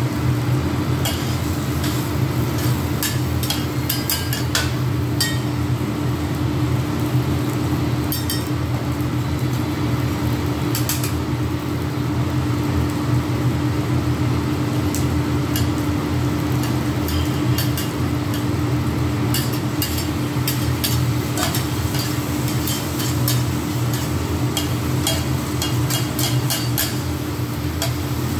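Metal spatulas clicking and scraping on a steel flat-top griddle as sliced onion and pepper sizzle, over a steady low hum. The clatter comes in clusters, thinning out in the middle and picking up again in the second half.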